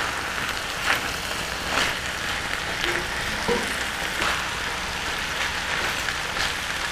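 Cabbage, carrots, onions and potato chunks sizzling in oil in an enamelled cast-iron pot, a steady hiss, while a spatula stirs them through, with a few soft scrapes and knocks.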